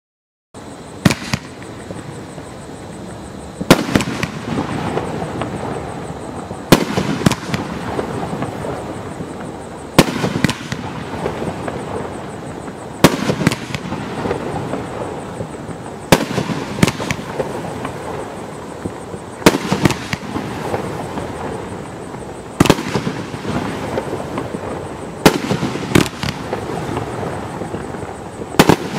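T-Sky Devastation Nation 500-gram, 23-shot firework cake firing. A sharp shot goes off about every three seconds, each followed moments later by a smaller report, with steady crackling between the shots.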